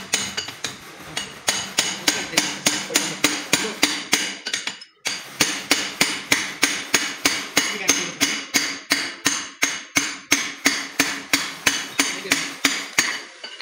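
Hammer tapping on metal in a fast, even rhythm, about three to four ringing strikes a second, with a brief pause about five seconds in.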